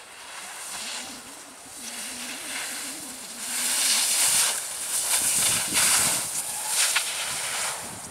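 Skis carving turns on snow: the edges scrape and hiss, swelling with each turn about once a second, and louder from about three and a half seconds in.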